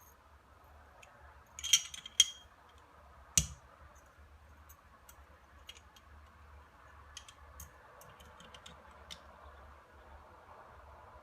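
Metallic clicks and clacks of a Ruger P97 DC pistol being handled: two sharp clacks a little under two seconds in, a heavier knock about a second later, then scattered light clicks.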